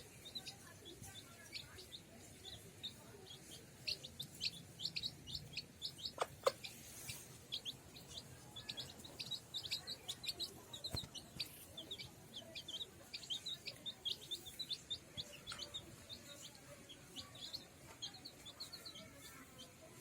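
Chicks peeping in many quick, high, short notes, with one lower call standing out about six seconds in.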